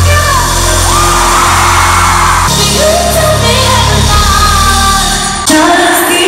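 Live pop concert music in a large arena: band with a strong bass line and a singer's gliding vocal, with crowd yells and whoops mixed in. The sound changes abruptly about two and a half and five and a half seconds in.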